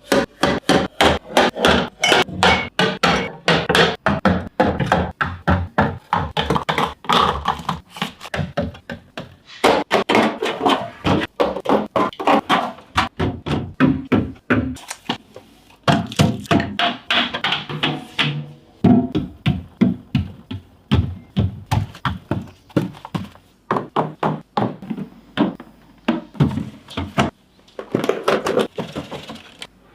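Rapid, irregular knocks, taps and clatter of containers and food packages being set down and arranged while a fridge is restocked.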